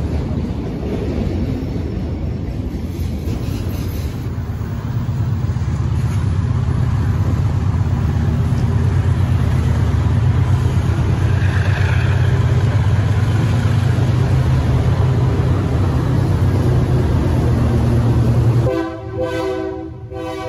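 A train rumbling past close by, its low rumble slowly growing louder. Near the end the rumble cuts off abruptly and a locomotive horn sounds.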